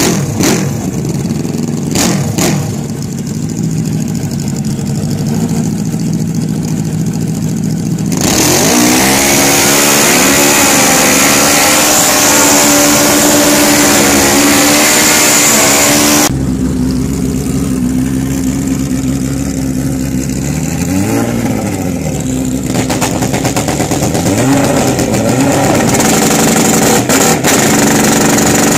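Drag-racing motorcycle engines idling, then revved hard and held at high revs through a tyre burnout, with quick revving blips that rise and fall. The sound changes abruptly a few times, about 8 s, 16 s and 22 s in.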